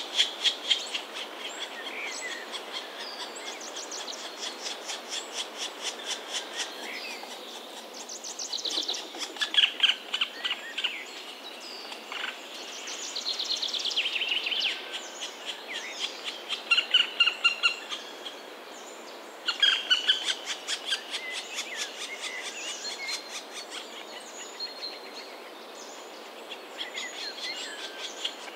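Black woodpecker nestlings begging from the nest cavity: rapid trains of short, harsh calls repeated in bursts of a few seconds, with quieter gaps between.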